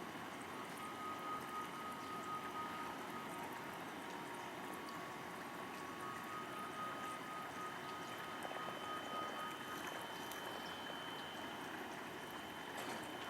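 Steady rush of running water, with faint thin high tones held over it that change pitch about halfway through.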